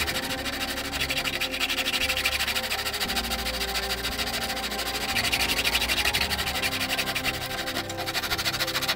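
Hand sanding: a small sandpaper block rubbed in quick back-and-forth strokes over a thin wooden model part, making a steady scratchy rasp. Soft background music plays underneath.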